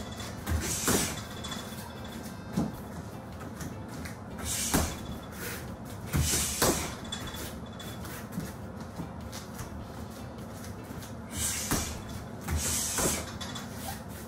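Heavy bag work: sharp hissing exhales, each with a dull thud of a strike, in short clusters about a second in, around the middle and near the end.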